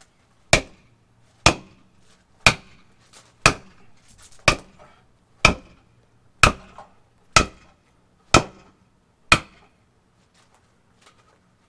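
A wooden board hammering the handle of a tire-plug insertion tool, ten sharp strikes about a second apart. The blows drive a sticky rope plug into a tire's puncture, where it is too stiff to push in by hand. The strikes stop shortly before the end.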